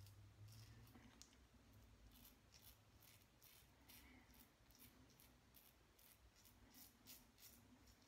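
Faint, quick scraping strokes of a Braveheart safety razor with a Gillette Super Platinum blade cutting stubble through shaving lather, a few strokes a second.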